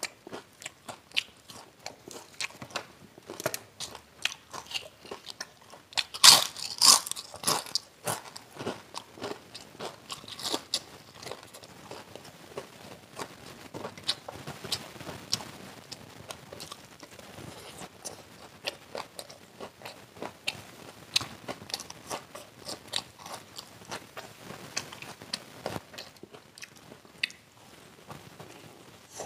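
Close-up crunching, biting and chewing of crispy deep-fried pakoras and fried chicken, with many sharp crackly crunches; the loudest burst of crunching comes about six to seven seconds in.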